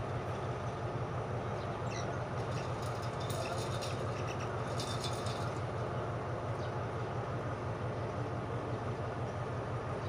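Diesel locomotive of a standing passenger train idling, a steady low rumble.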